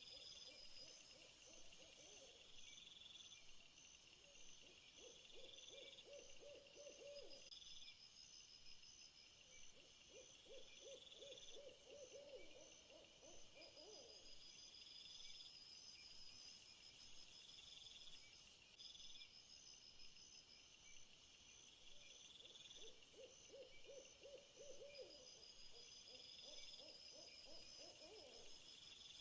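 A steady high chorus of chirping crickets or similar insects, with a lower trilling call repeated about five times, each trill lasting two to three seconds.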